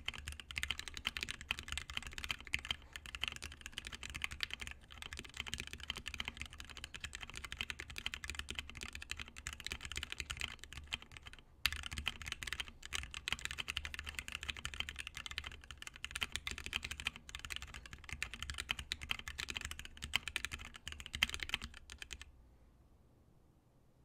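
Rapid, continuous typing on a 60% mechanical keyboard with Gateron Red Ink linear switches, lubed with Tribosys 3203 and fitted with switch films, in a KBDFans Tofu aluminium case. There is a brief pause about halfway, and the typing stops near the end.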